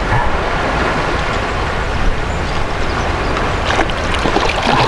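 Steady wind rumble on the microphone with water lapping against a kayak, and a few sharper splashes near the end as a hooked sea bass nears the surface.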